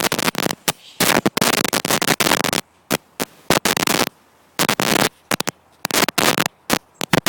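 Loud bursts of crackling static-like noise on the recording, cutting in and out abruptly with short quiet gaps between.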